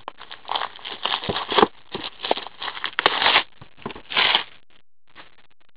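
Plastic shrink-wrap being torn and pulled off a sealed trading-card box, crinkling and crackling in irregular bursts for about four seconds, then stopping.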